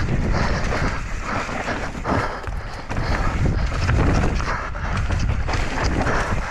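Wind buffeting a helmet camera's microphone on a mountain bike descending a dirt trail at speed, with knobby tyres crunching over dirt and roots and the bike rattling over bumps.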